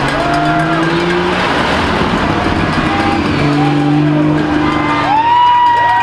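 Slow parade of cars passing, with car horns sounding in several long held honks over the traffic noise.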